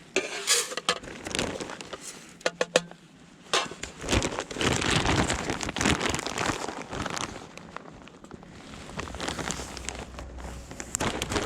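Clicks and crinkling while handling rice, then dry rice grains pouring into a metal hangō mess tin, a rushing patter lasting several seconds, followed by quieter handling.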